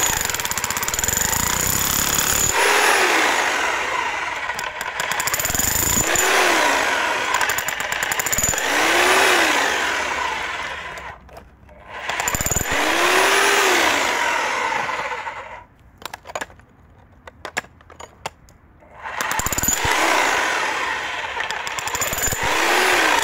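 A Parkside Performance PPBH 1600 A1 25-joule corded SDS-Max hammer drill in chisel mode, hammering a chisel bit into a concrete paving stone in long bursts. It stops briefly about halfway through and again for a few seconds about two-thirds of the way in, with a few small knocks during that longer pause.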